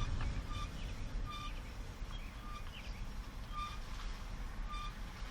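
2004 Nissan Sentra rolling slowly over a low road rumble, with a short high squeak repeating about once a second. This is the noise the car makes when braking or driving slowly, which the owner likens to the brake pads rubbing on something.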